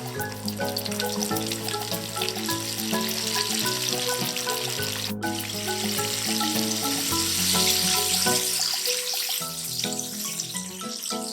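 Chicken pieces deep-frying in hot oil, a steady crackling sizzle, under light background music.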